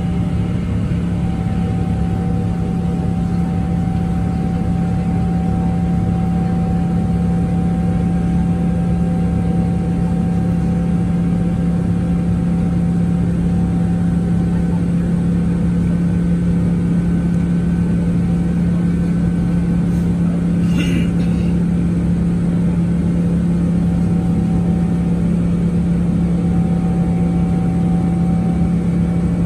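Steady cabin drone of a Boeing 777-300ER climbing after takeoff, heard inside the cabin: its GE90 engines at climb power and the airflow give a strong, constant low hum with a few faint steady whine tones. One short click sounds about two-thirds of the way through.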